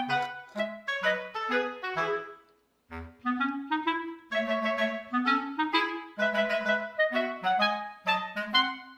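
Background music: a bouncy, clarinet-like melody of short, detached notes, broken by a brief pause about two and a half seconds in.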